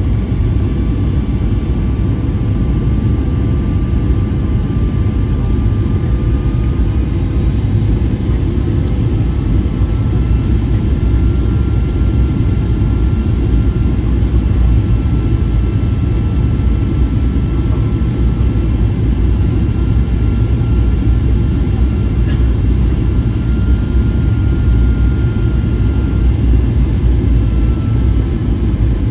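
Steady cabin noise of a Boeing 737-800 heard from inside the cabin: a loud, even rumble of airflow and CFM56-7B engines, with faint engine tones drifting slowly in pitch.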